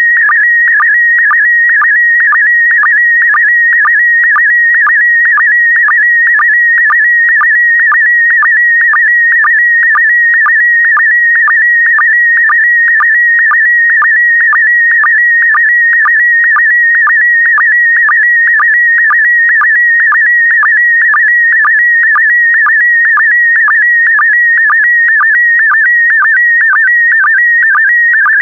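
Slow-scan television (SSTV) signal in PD120 mode: a loud, steady high tone that dips briefly in pitch about twice a second at each line sync pulse. The tone barely wavers because a bright, even sky is being sent.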